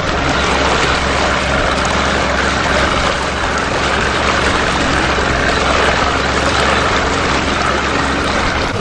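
A boat motor running steadily, a constant noisy drone with a low hum beneath it.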